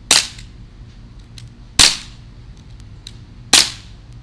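Daisy Powerline 5501 CO2 blowback BB pistol firing three shots, each a sharp crack, about a second and a half to two seconds apart. Each shot also works the pistol's gas-driven slide.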